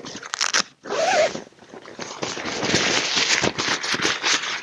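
Zipper on a tent's nylon rain fly being unzipped to open the vestibule door, in a few rasping pulls with the longest near the end, along with rustling of the fly fabric.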